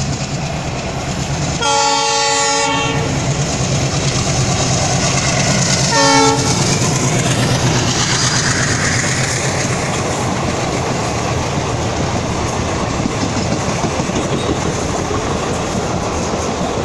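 Diesel locomotive sounding its horn twice as it passes at speed: a long blast about two seconds in and a short one about six seconds in. Its pitch then falls away as it goes by, and a steady rumble and clickety-clack of the passenger coaches rolling past follows.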